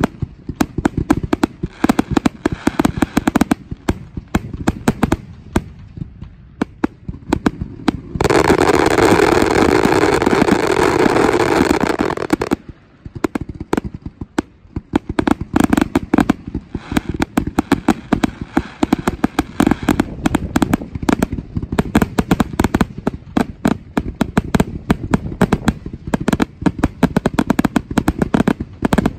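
Fireworks finale: a rapid, continuous barrage of aerial shell bursts, bang after bang overlapping. From about eight to twelve seconds in, the bangs merge into a loud, unbroken rush of noise.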